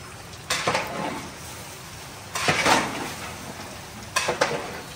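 A long metal ladle scraping and knocking inside a large metal cooking pot as the food is stirred, in several separate strokes. The loudest cluster of strokes comes about halfway through.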